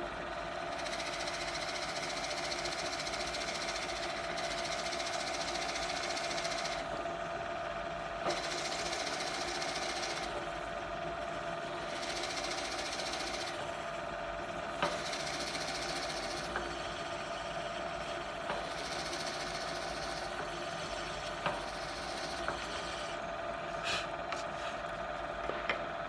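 Drill press motor running steadily with a whine while the bit bores into wood in repeated passes to clear the chips. A cutting hiss comes and goes every few seconds, with a few light knocks.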